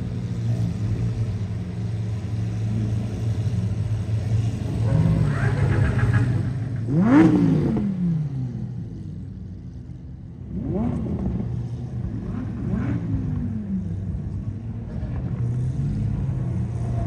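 A car engine idling steadily, revved in short blips that climb and fall back. The loudest blip comes about halfway through and two smaller ones follow a few seconds later.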